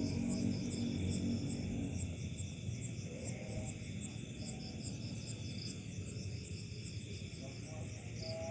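Night insects, crickets, chirping in rapid repeated pulses, with a low droning sound that fades out about two seconds in.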